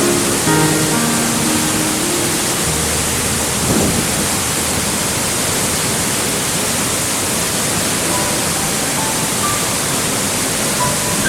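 Steady, loud rush of falling mountain water. Soft background music notes sound over it at the start and again in the last few seconds.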